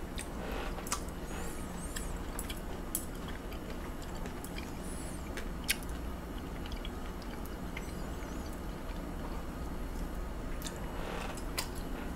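Close-up chewing of raw beef yukhoe, with wet mouth sounds and scattered sharp clicks and taps, over a steady low hum.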